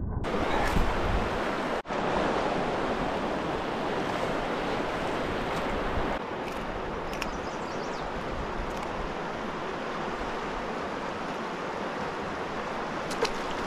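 Steady rushing of river current, with wind on the microphone.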